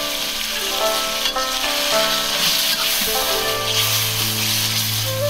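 Stir-fry sizzling hard in a hot stainless-steel wok over a charcoal fire, just deglazed with coconut milk, with a metal spatula stirring and scraping through it. Background music with held notes plays underneath.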